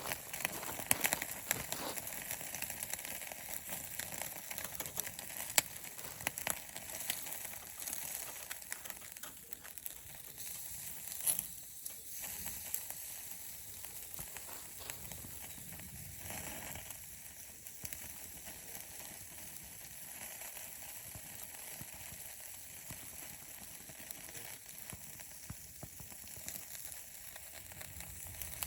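A small fire crackling and sizzling in a compact FIREBOX Nano stove, with a steady hiss and many sharp crackles, thickest in the first third, and one louder pop about eleven seconds in.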